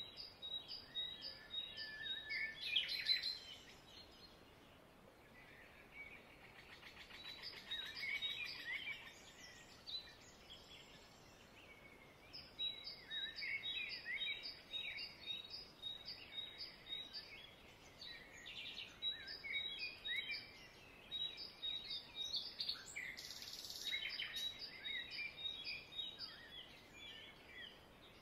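Small birds chirping and twittering in bouts, with runs of quick, evenly repeated high notes among varied chirps.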